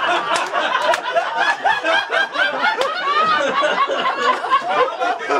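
Audience laughing, many voices overlapping, with the host laughing into a handheld microphone.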